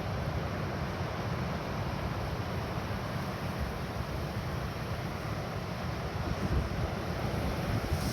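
Strong wind rumbling and buffeting on the microphone, over the steady wash of small surf.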